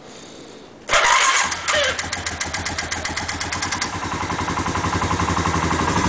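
A four-wheeler (ATV) engine cold-starts in below-freezing air, catching at once about a second in. It settles into a steady idle with fast, even firing pulses, a sign that it started readily in the cold.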